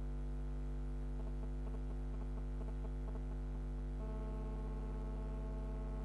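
Steady electrical mains hum with a stack of overtones, the kind of hum picked up on a live-stream audio line. A run of faint ticks comes through in the middle, and a faint extra tone is added from about four seconds in.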